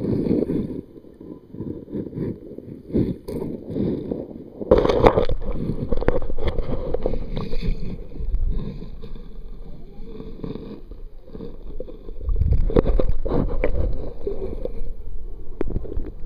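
Muffled water sloshing and rumbling around a submerged waterproof camera, with scattered knocks and two louder surges of churning water, about five seconds in and again about twelve seconds in.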